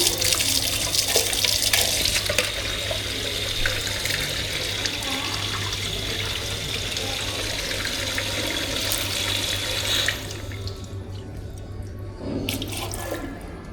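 Tap water running into a sink, shut off about ten seconds in, followed by a few light clicks near the end.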